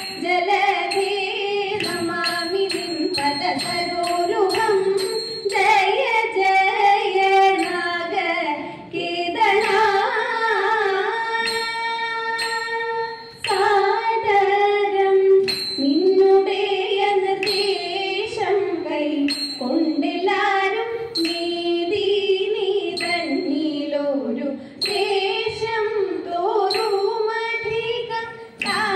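Female voices singing a Thiruvathira song in a Carnatic style melody, accompanied by sharp, evenly spaced strokes that keep the beat.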